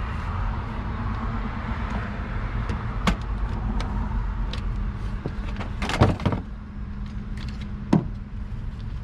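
Scattered metal clicks and knocks of hand tools against the belt tensioner and pulleys as a serpentine belt is being refitted, the loudest few knocks close together about six seconds in, over a steady low hum.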